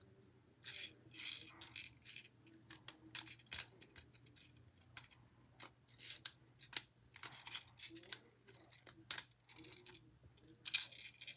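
Scattered light clicks and brief rustles at irregular intervals, the sound of small hard plastic pieces being handled, over a faint steady hum.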